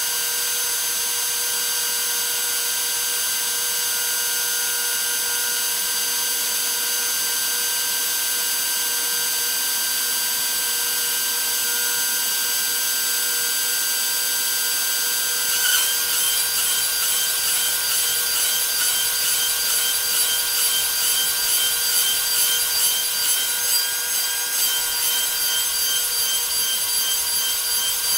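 DeWalt 611 trim router spinning a 1/8 inch single-flute bit with a steady high whine, over the hiss of a dust-collection vacuum. About 16 seconds in the sound turns rougher and wavers in level as the bit works into the quarter-inch aluminium plate.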